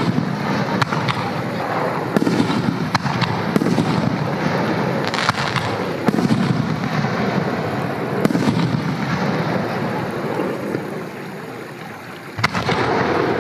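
Aerial firework shells bursting one after another in sharp bangs, each trailing off in a rumble. A short lull comes near the end, then one loud bang.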